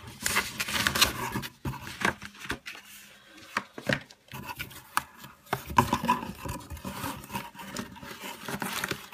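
Paper envelope and cardboard box packaging being handled: irregular rustling and scraping with short taps and clicks.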